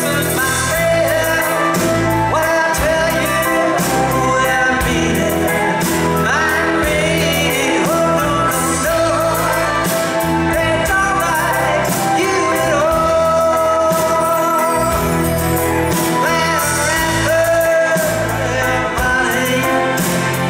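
Live band playing a song: a male singer over acoustic guitars, bass guitar and keyboard.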